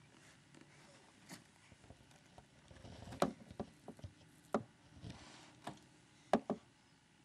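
A series of light, irregular taps and clicks, about eight of them, the loudest in the second half.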